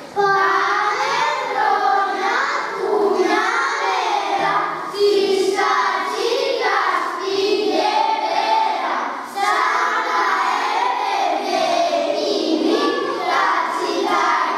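A group of young children singing a song together in unison, in phrases a few seconds long with short breaks between them.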